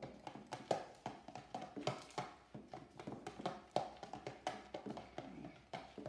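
Red-handled wire whisk beating a flour-and-water paste in a clear plastic tub: irregular clicks and taps of the wires against the tub's sides, a few a second, with a wet stirring sound.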